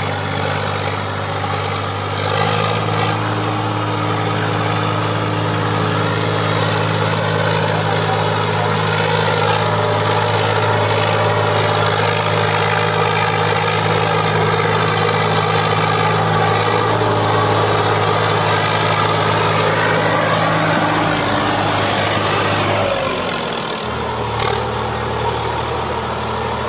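Sonalika DI 47 RX tractor's diesel engine running steadily under load as it hauls a heavily loaded trailer through sand. The engine note wavers, then drops in pitch a few seconds before the end.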